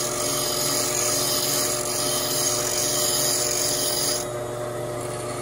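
Delta variable-speed bench grinder with an 80-grit CBN wheel grinding the primary bevel of a steel chisel: a steady high grinding hiss over the motor's hum. About four seconds in the hiss drops away as the chisel comes off the wheel, leaving the grinder spinning.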